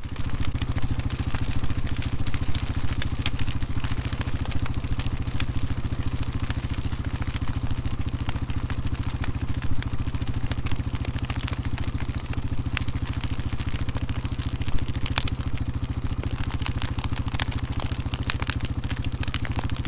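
An engine idling steadily, with scattered sharp crackles over it.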